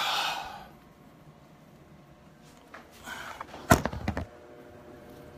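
Handling noise from a phone being moved and bumped: a short breathy rush of noise at the start, then some rubbing and a quick cluster of loud knocks a little under four seconds in.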